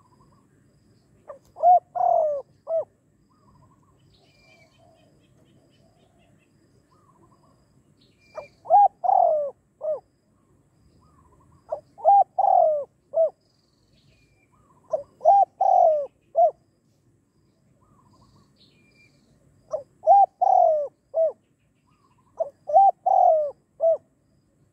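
Spotted dove cooing: six repeated calls a few seconds apart, each a short phrase of three or four notes with a drawn-out middle note. Faint chirps of other small birds sound between the calls.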